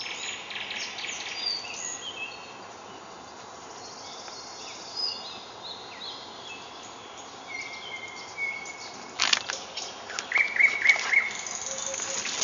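Several small songbirds singing and calling in woodland, short high chirps and trills overlapping, with a steady background hiss. About nine seconds in, a sharp knock, then rustling and clicks as the camera is moved.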